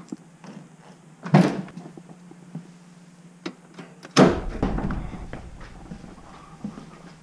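A Ford Mustang's door unlatched and swung open about a second in, then a heavier thunk about four seconds in as the hood release is pulled and the hood latch pops, with small handling clicks around them.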